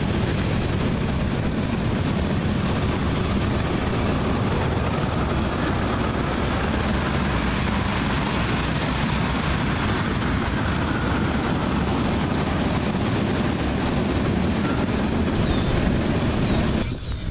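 Freight train of tank cars rolling past, a steady rumble and clatter of steel wheels on rail, which cuts off suddenly near the end.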